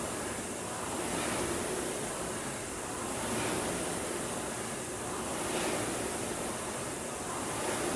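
Concept2 rowing machine's air-resistance flywheel fan whooshing, swelling with each drive stroke about every two seconds at a rate of about 28 strokes a minute.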